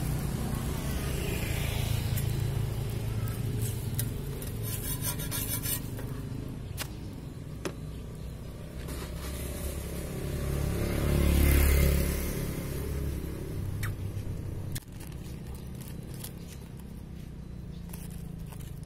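Roadside traffic running steadily, with one vehicle swelling loudest as it passes about eleven seconds in. Near the start a metal spatula scrapes on a flat steel griddle, and light clicks and a brief rapid rattle about five seconds in are scattered through.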